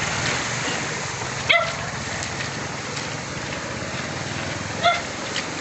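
Motorcycle engines running at low revs while the bikes wade through floodwater, over a steady wash of water noise. Two short, sharp calls stand out, about a second and a half in and again near the end.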